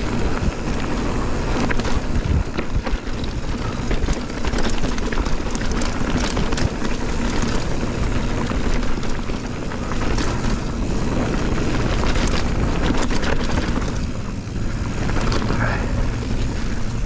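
Mountain bike descending a dirt trail at speed: wind rushing over the microphone, tyres on dirt, and the bike rattling and clattering over bumps and roots.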